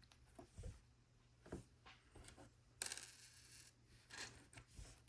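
Faint clicks and rattling of small plastic LEGO pieces being sorted through by hand, with a brief rattle about three seconds in.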